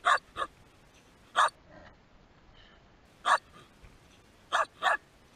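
Shetland sheepdog barking: six short barks, irregularly spaced, with two in quick succession at the start and two more near the end.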